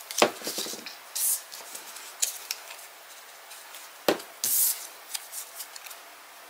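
Small cardstock die-cut pieces being handled on a craft table: two sharp taps, one at the start and one about four seconds in, with short papery swishes and faint ticks between.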